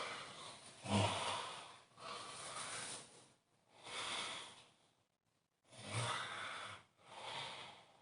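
A sleeping person snoring: a run of heavy, noisy breaths about a second long with short pauses between them, with a low buzzing snore on the breath about a second in and again about six seconds in.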